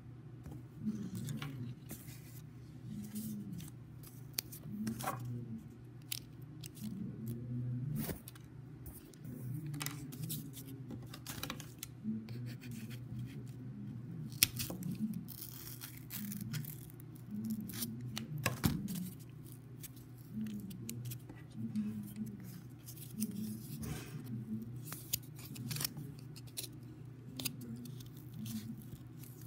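Scissors snipping through corrugated cardboard in many short, irregular cuts.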